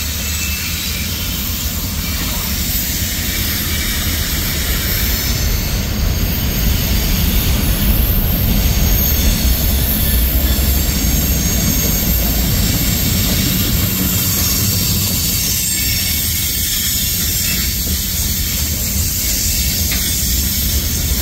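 Freight cars of a CSX mixed freight train rolling past: a steady noise of steel wheels on rail, a little louder in the middle.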